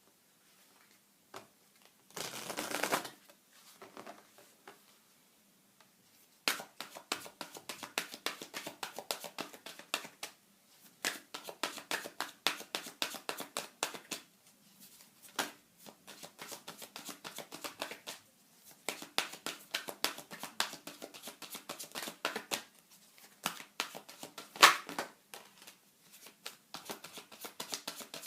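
A deck of oracle cards being shuffled by hand: a brief rustling rush of cards early, then long runs of quick, crisp card clicks, broken by short pauses.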